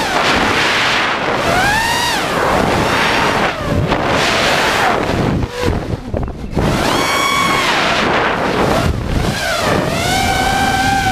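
FPV racing quadcopter's brushless motors and propellers whining, the pitch rising and falling in swoops with the throttle, over wind rushing across the onboard microphone. The motor whine briefly drops away about halfway through, then swells back.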